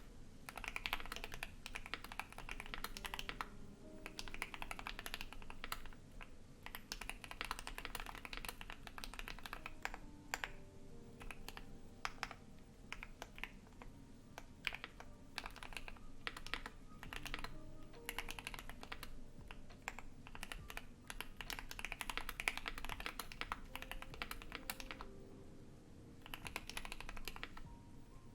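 Typing on a Keychron Q1 mechanical keyboard with lubed and filmed JWK Alpaca linear switches, a polycarbonate plate and ABS keycaps: fast runs of keystrokes broken by short pauses, with added reverb. A steady low hum from a loud PC runs underneath.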